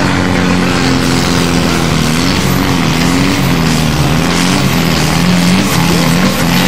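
John Deere tractor's diesel engine running hard under full load while pulling a weight-transfer sled, belching black smoke. Its pitch holds steady, sagging slightly now and then as the load bites.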